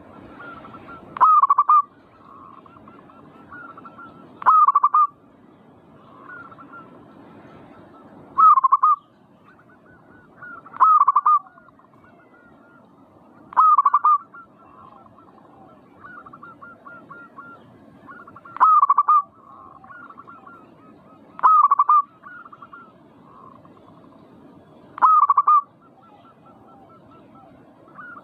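Zebra doves cooing: a loud, short staccato coo about every three seconds, nine in all, with softer cooing in between.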